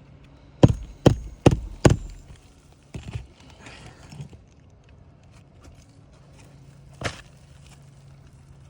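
Four quick hammer blows about a second in, then a couple of lighter knocks and one more blow near the end, as a shingle roof is being repaired.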